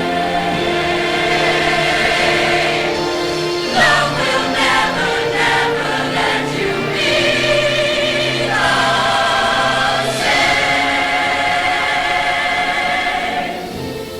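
Show choir singing held chords with vibrato, moving through quicker notes partway through, then fading down near the end.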